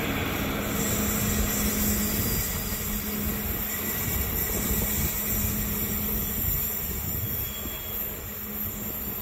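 Double-deck passenger coaches rolling away on the rails as the train departs, a steady rumble with a constant hum that slowly fades as it recedes.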